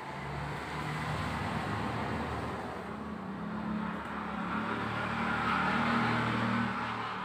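A motor vehicle going by: its engine and road noise swell gradually, are loudest about six seconds in, and begin to fade near the end.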